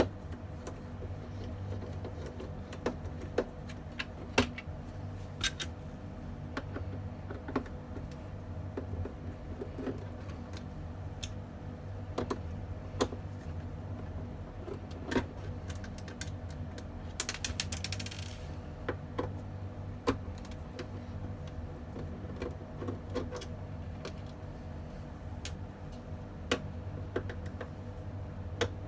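Scattered clicks and taps of plastic and metal parts being handled while a desktop computer is opened up for a memory upgrade, over a steady low hum. A short swishing scrape comes about two-thirds of the way through.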